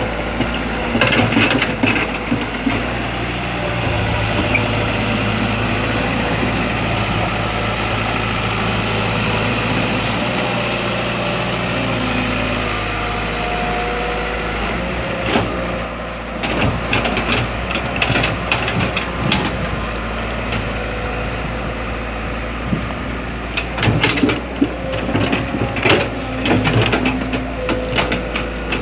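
Kobelco hydraulic excavator's diesel engine running steadily, with bursts of clattering knocks from the bucket working the ground about a second in, again from about 15 to 20 seconds, and near the end.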